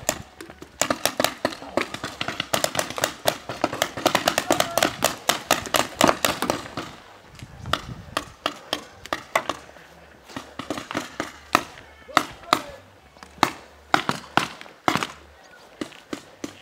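Paintball markers firing: quick volleys of sharp pops, several a second, for the first several seconds, then scattered single shots.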